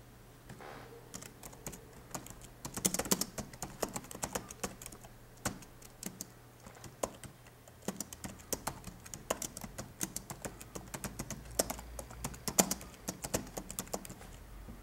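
Typing on a computer keyboard: irregular runs of key clicks, with the busiest flurries about three seconds in and again near the end.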